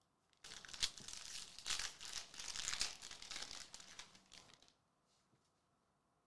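Foil wrapper of a Donruss Soccer hobby trading-card pack crinkling as it is torn open and pulled off the cards, for about four seconds, then stopping.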